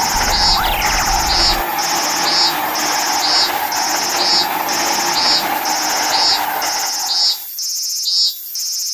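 Insects chirping in a regular pulse about once a second, over a steady hum that cuts off about seven seconds in. The low rumble of a passing train dies away in the first two seconds, and a bird gives a brief falling whistle under a second in.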